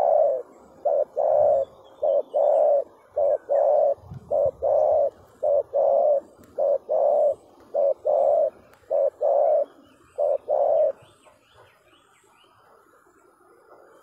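Spotted dove cooing: a low coo phrase of a short note followed by a longer one, repeated about ten times at an even pace, stopping about eleven seconds in.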